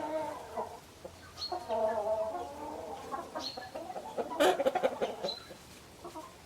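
Chickens clucking and squawking in a series of short calls, loudest about four and a half seconds in, with short high chirps about every two seconds.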